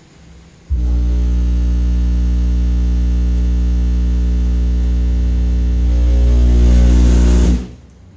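Two 15-inch Machete MS15D2 subwoofers in a Fiat Panda's boot playing a bass test tone at full power for a sound-pressure-level measurement, heard from outside the car: a steady, very loud deep hum with a buzzy edge. It starts suddenly under a second in, swells a little near the end and cuts off after about seven seconds.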